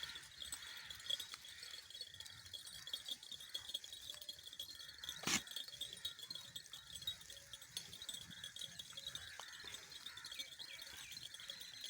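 Steady high-pitched chirring of insects, with one sharp click about five seconds in.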